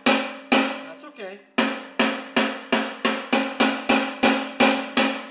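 Ball-peen hammer striking the steel housing and bearing flange of a John Deere TRS 24 snowblower, each blow ringing. About a dozen blows: two, a brief pause about a second in, then a quickening run of about three a second. The blows knock a wonky bearing flange into line.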